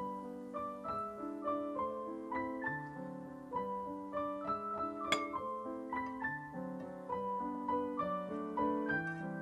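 Background piano music, a flowing run of notes, with one sharp click about five seconds in.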